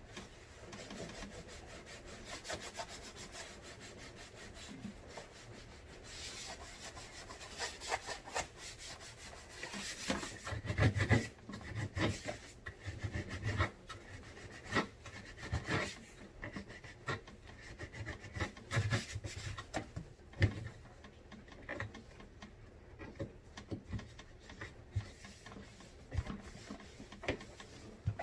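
Scrubbing a refrigerator part by hand: irregular rubbing, scraping strokes, with a few louder knocks partway through.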